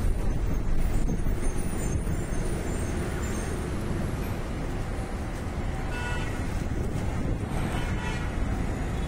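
Steady road and engine rumble of moving traffic, with a vehicle horn honking briefly about six seconds in and again a couple of seconds later.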